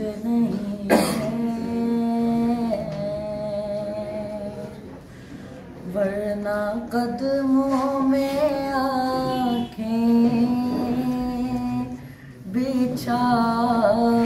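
A teenage boy singing a naat solo, unaccompanied, holding long, slightly wavering notes in several phrases with short pauses between them.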